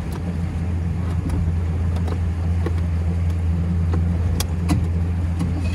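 Motorboat engine running with a steady low hum, with a few light clicks over it.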